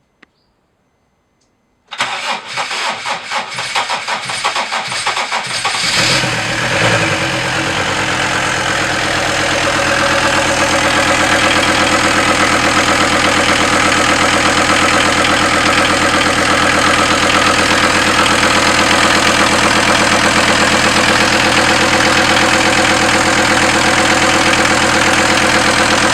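Audi A6 C4 2.5 TDI five-cylinder diesel cranking for about four seconds, then catching and running steadily on its first start after an engine rebuild.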